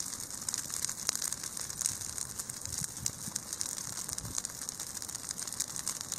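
Brush fire crackling as low flames burn through shrubs and dry twigs: a dense, continuous run of small snaps over a steady high hiss.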